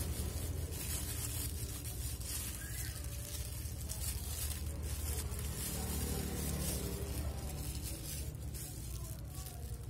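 Thin plastic bag crinkling and rustling in short irregular bursts as hands press growing medium into it around a plant stem, over a steady low rumble.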